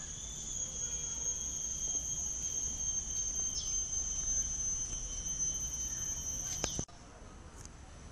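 A steady, high-pitched insect drone, one held tone, that cuts off abruptly with a click near the end.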